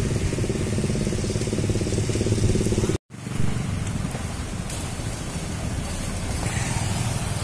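A motorcycle engine running with a steady, fast-pulsing drone. After a sudden cut about three seconds in, there is general street traffic noise with motorcycles passing.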